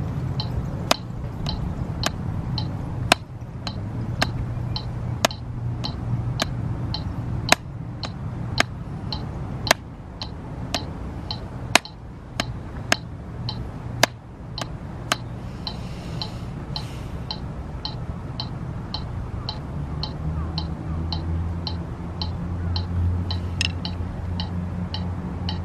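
Drumsticks striking a drum practice pad, one sharp stroke about every second, against a metronome clicking steadily at tempo 110. The stick strokes stop about fifteen seconds in, and the metronome carries on alone.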